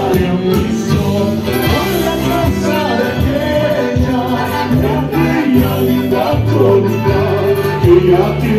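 Live band music with a singer and guitars, playing continuously.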